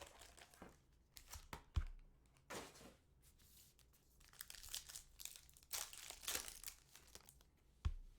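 Foil trading-card pack wrapper being torn open and crinkled as the cards are pulled out, in scattered crackly bursts, with two soft low knocks, one about two seconds in and one near the end.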